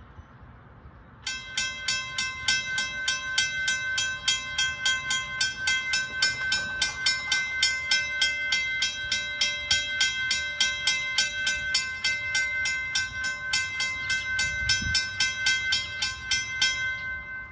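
Railroad crossing warning bell starting up about a second in and ringing in fast, even strokes while the crossing is activated for an approaching train. It stops near the end, once the gates are down.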